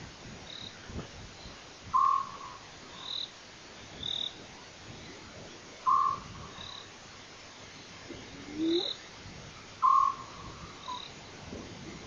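A frog calling at night: one short, sharp call repeated about every four seconds, with fainter, higher chirps between the calls.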